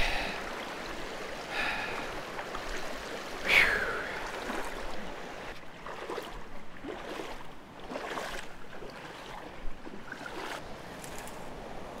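Small mountain creek running over rocks, with scattered splashes of feet wading through the shallows. A short falling sound stands out about three and a half seconds in.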